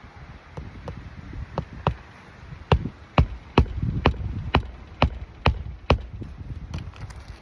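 Hammer driving roofing nails into an asphalt shingle: a few lighter taps, then a run of sharp strikes about two a second.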